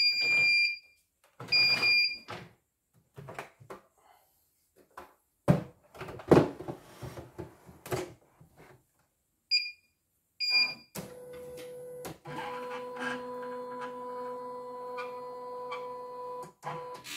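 CNY E900 computerized embroidery machine beeping twice, then the clatter of its embroidery unit being fitted, two short beeps, and about six seconds of steady motor whirring with a clear hum as the machine runs its hoop carriage.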